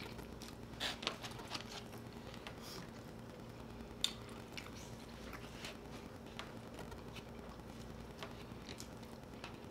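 Eating sounds: chewing and soft mouth noises, with plastic forks scraping and tapping on paper plates in scattered small clicks, one sharper click about four seconds in. A faint steady hum underneath.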